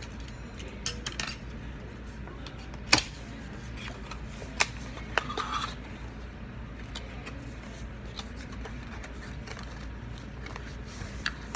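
Scattered sharp clicks and knocks of hard objects being handled, the loudest about three seconds in, with a small cluster a couple of seconds later, over a steady low hum.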